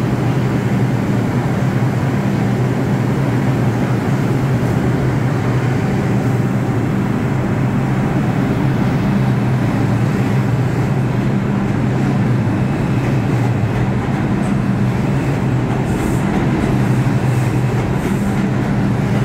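R142 New York City subway train pulling out of the station past the platform: a steady rumble of wheels on rails with a low, even motor hum.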